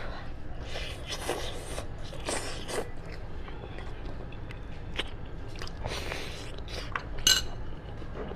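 A person chewing and biting cooked sheep's-head meat, with irregular crunching and wet mouth sounds and one louder sharp sound near the end.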